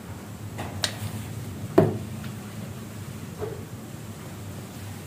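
Light kitchen clatter: a few short knocks of a jar, spoon and containers being handled, the loudest about two seconds in, over a low steady hum.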